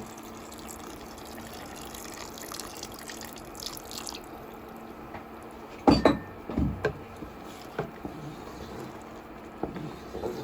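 Water being added to the risotto pan, a light running, splashing sound, then a loud clank of cookware about six seconds in, followed by a few lighter knocks.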